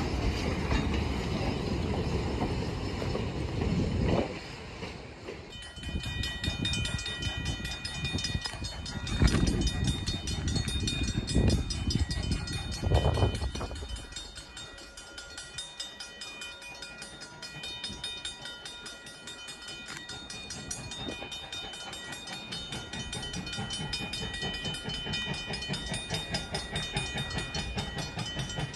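Vintage passenger train coaches rolling past over the rails with a low rumble and wheel clatter. The rumble drops suddenly about four seconds in as the last coach clears, and a few louder knocks follow before it fades after about thirteen seconds. A steady high-pitched ringing tone runs in the background from about five seconds in.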